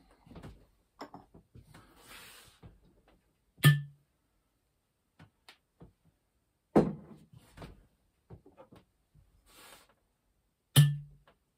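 Mortar and pestle being worked: three hard knocks a few seconds apart, each with a short low ring, with small clicks and two brief gritty scrapes between them.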